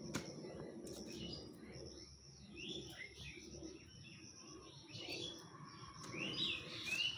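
Small birds chirping repeatedly in short calls, over a steady high-pitched whine, with a few faint clicks.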